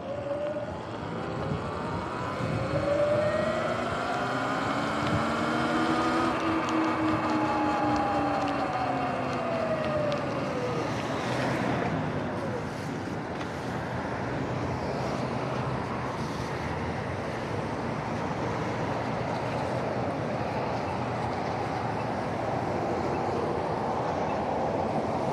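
Sur-Ron electric dirt bike's motor whining, rising in pitch as the bike pulls away through a turn and falling as it slows to a stop about halfway through. After that, a steady hiss of traffic and wet road while the bike stands.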